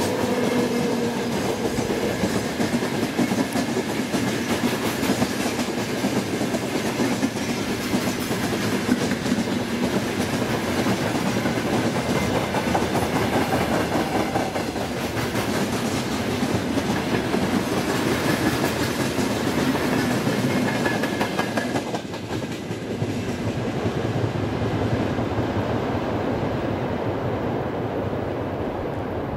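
Freight train of open wagons and tank cars rolling past: a steady rumble of steel wheels on rail with a clickety-clack over the rail joints. About 22 seconds in the sound drops and then fades as the last wagons pass and the train draws away.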